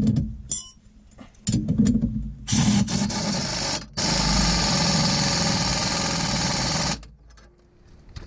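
Power ratchet spinning a nut on the truck's steering drag link, run in short bursts and then for one steady stretch of about three seconds that stops sharply near the end.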